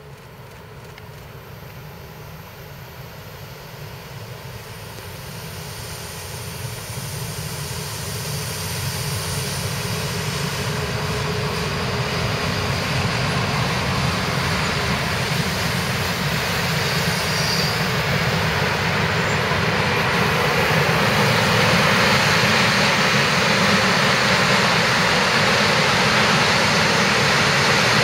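Long freight train descending a mountain grade behind two electric locomotives, its wagons rolling past on curved track with a steady rumble and rail noise. It grows steadily louder over the first twenty seconds or so as the train nears, then holds at full level as the wagons pass close by.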